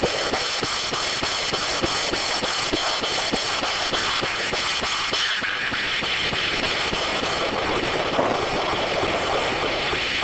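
D9 duplex circular sawmill running: a steady mechanical noise with rapid, regular ticking through the first half. Its tone changes about five seconds in.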